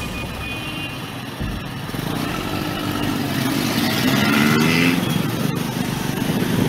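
Motorcycle engine idling, then pulling away and accelerating from about two seconds in, its pitch rising as it gets louder.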